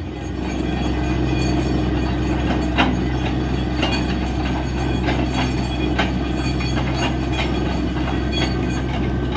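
Truck-mounted borewell drilling rig running: a steady heavy engine and compressor drone with irregular metallic clanks and knocks from the drill string at the wellhead.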